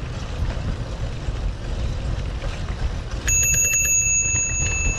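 Bicycle bell rung in a quick run of about seven strikes a little past halfway, leaving a clear ringing tone that lingers. Under it, a steady low rumble of wind on the microphone while riding.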